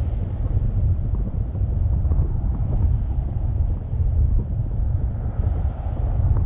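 Wind buffeting the microphone over the low, steady rumble of a car driving along the road.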